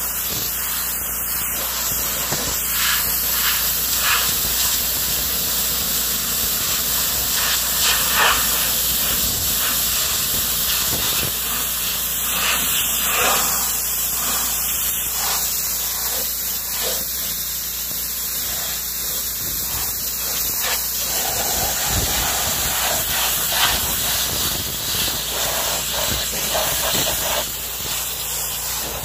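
Pressure washer jet hissing steadily as it sprays the sheet-metal side shield of a John Deere B tractor, blasting off paint loosened by electrolysis. The sound brightens briefly now and then as the jet sweeps across the metal.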